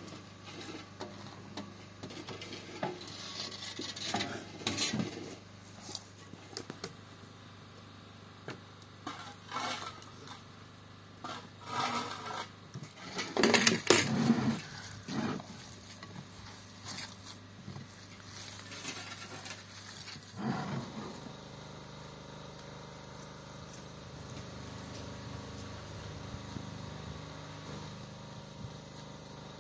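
Cooking utensils and cookware clattering and knocking: irregular clinks and knocks, with a cluster of louder clatters about halfway through. After about twenty seconds only a steady low hum remains.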